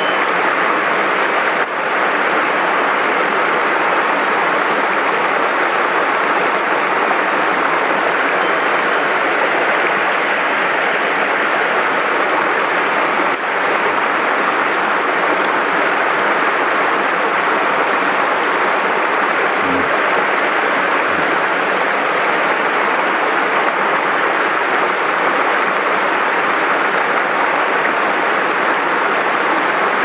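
Mountain stream rushing over rocks through shallow rapids: a steady, loud rush of water.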